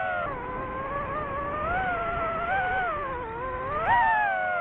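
FPV drone's motors whining, the pitch gliding up and down with the throttle, with a sharp rise about four seconds in that then slides back down.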